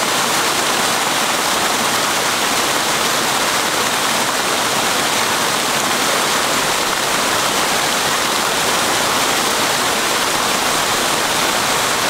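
Water pouring over a small waterfall in a shallow stream: a loud, steady rush of falling water that does not change.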